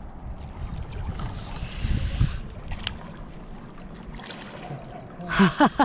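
Water splashing as a person wades into a lake, with one louder splash about two seconds in, over wind rumbling on the microphone. A short vocal exclamation near the end.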